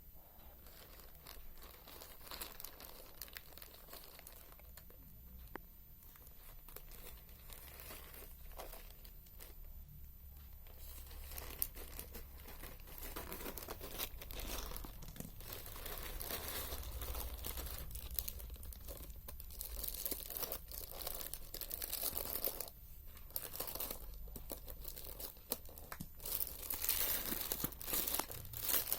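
A parcel's packaging being torn open and crumpled by hand: irregular crinkling and tearing, getting louder in the second half, with a run of sharp crackles near the end.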